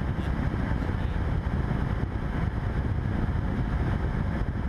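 Steady drone of a Cessna 172's engine, propeller and airflow in the cockpit, heard through the headset intercom.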